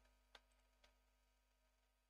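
Near silence: room tone with two faint clicks, about a third of a second and just under a second in, from computer mouse and keyboard presses.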